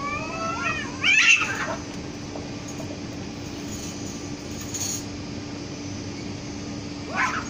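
Two cats caterwauling at each other in a fight, with rising and falling yowls that break into a loud screech about a second in as they clash. Another short screech comes near the end.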